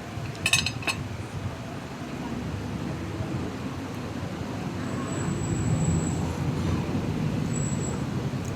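Road traffic rumbling steadily, with a few sharp clinks about half a second in and a thin high whine twice in the second half.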